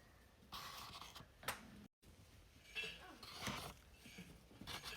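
Faint handling noises of eggs being gathered: irregular rustling with light clinks and a sharp click about one and a half seconds in.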